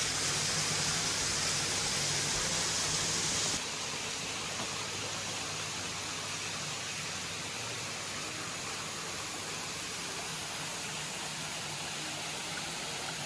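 A steady rushing noise with no distinct pitch, hissier and louder for the first few seconds, then dropping a step in level about four seconds in and running on evenly.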